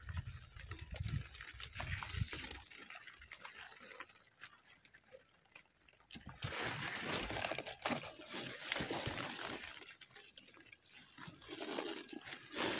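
Rain pattering with the rustle of zucchini leaves and stems being handled and cut with a knife. The patter and rustling thicken and get louder about six seconds in.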